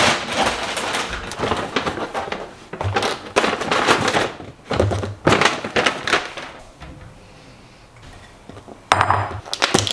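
Packaging and containers being handled and set down on a counter: a run of short rustles and knocks, a lull, then another clatter near the end.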